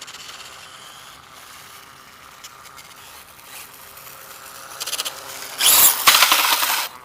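Brushless electric motor of an RC dirt bike whining faintly at a distance. About five and a half seconds in, a loud rushing, scrabbling noise starts and lasts to near the end.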